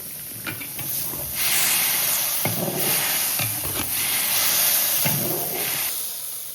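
Pot of tofu soup hissing as it cooks, a loud hiss that starts about a second and a half in and stops near the end, with a few low knocks.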